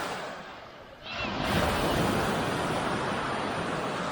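Surf breaking on a sandy beach: one wave's wash dies away over the first second, then another wave breaks about a second in and keeps washing in.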